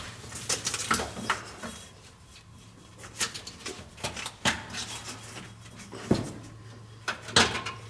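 Scattered clicks and knocks of hands working a plastic air line into the fitting on top of a truck's air spring and handling the parts around it, over a faint steady low hum.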